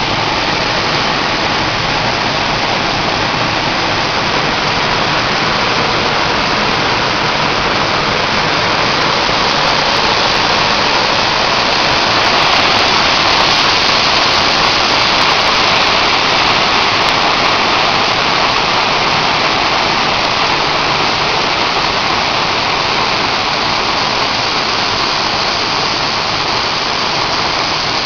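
Large waterfall in heavy flow: a steady, loud rush of falling water, swelling slightly about halfway through.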